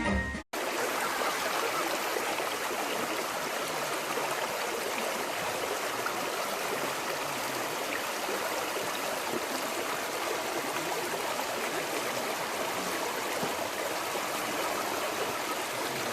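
Steady rush of flowing stream water, even and unbroken, after a music clip cuts off about half a second in.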